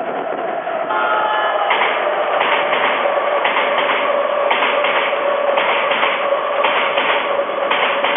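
Odakyu Line electric train passing close by, its wheels clattering over the rail joints in a steady rhythm about once a second, over a steady mid-pitched tone from the train.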